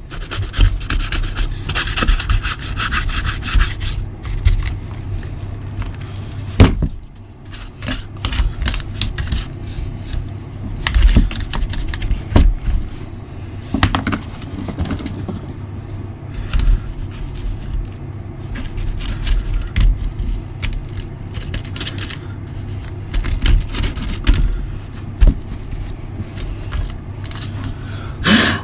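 A brush scrubbing dried mud off an RC nitro buggy, with uneven rubbing and scraping strokes and a few sharp knocks, one loud about seven seconds in.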